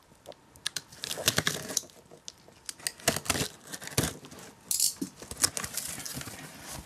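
Cardboard shipping box being opened by hand: packing tape tearing and the cardboard rustling and knocking in scattered clicks and crinkly scrapes.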